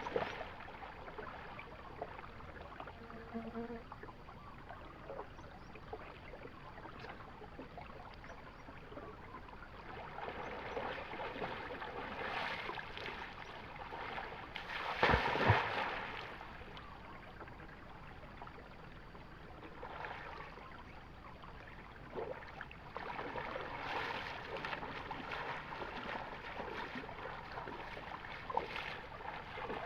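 River water flowing and splashing, with a louder splash about halfway through.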